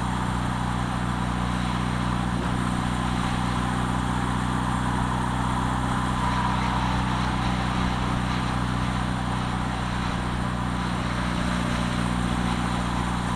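A car driving at a steady speed: a steady engine drone with road and wind noise, picked up by a camera mounted on the outside of the car.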